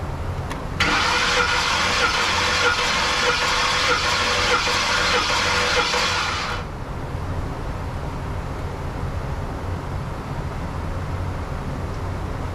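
Starter cranking the 2010 Ford F-150's 5.4 V8 with the spark plugs out for a compression test: an even, fast whir with no firing. It starts about a second in and stops after about six seconds. A low hum continues underneath.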